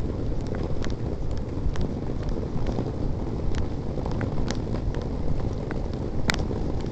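Wind buffeting a phone's microphone: a steady low rumble, with scattered light clicks and one sharper click near the end.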